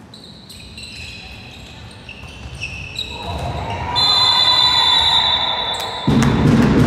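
An indoor court game in a sports hall: ball bounces and short high squeaks on the floor, growing busier partway through. About six seconds in, a louder wash of voices and hall noise comes in.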